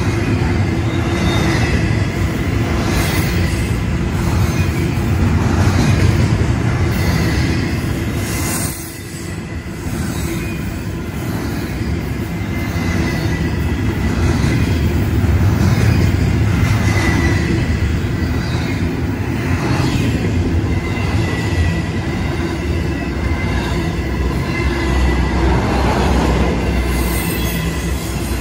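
Union Pacific double-stack intermodal freight train passing close by: a steady heavy rumble and clatter of steel wheels on the rails, with a thin high squeal from the wheels running through it. The loudness dips briefly about nine seconds in.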